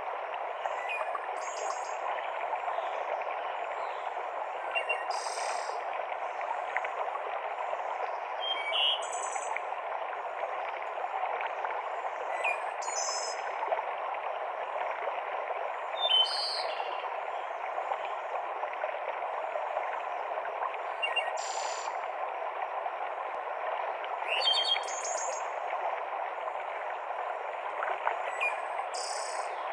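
A mountain stream cascading, making a steady rush of water, with a small bird giving short, high chirping calls every three to four seconds over it.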